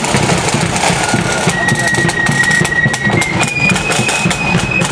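Marching band playing: a high melody line of held notes stepping upward over snare and bass drums.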